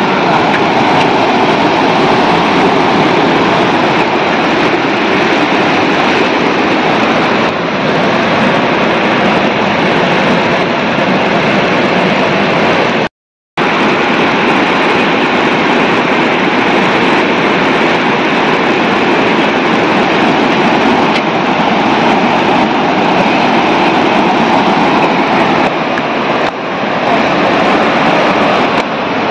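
Loud, steady rush of a swollen, muddy river pouring through rapids and over boulders. The sound cuts out for a moment about thirteen seconds in, then resumes unchanged.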